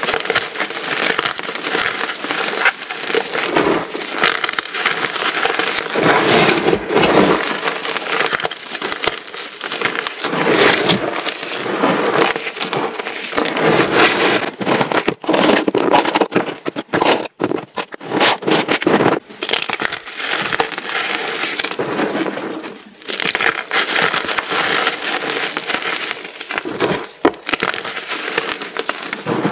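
Many small truncated pyramids of reformed, dyed gym chalk being crushed together, a continuous dense crunching and crackling made of countless small snaps, with two brief lulls.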